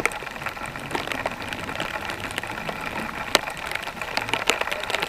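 Steady rain, with irregular sharp taps of drops striking close by; the loudest tap comes a little after three seconds in.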